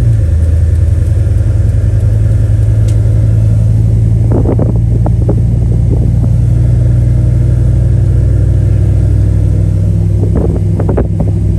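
2000 GMC Sierra 1500 pickup heard from inside the cab while driving: a loud, steady low engine and road drone, with a couple of brief clusters of short knocks about four seconds in and near the end.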